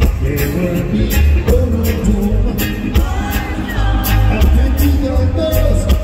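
Live reggae band playing: a male singer singing into a microphone over heavy bass and regular drum-kit hits.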